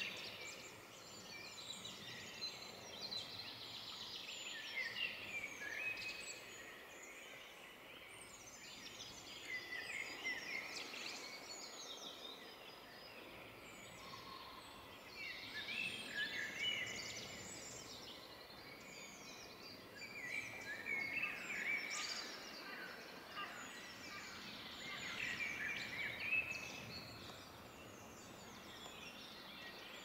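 Songbirds singing, several at once, in phrases of quick chirps and trills that come every few seconds, over faint steady background noise.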